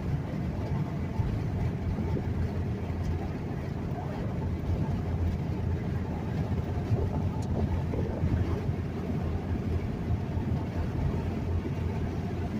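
Steady road and engine rumble inside a moving vehicle's cabin while driving at speed.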